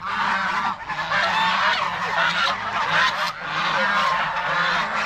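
A flock of geese honking, many calls overlapping without a break, over a steady low hum.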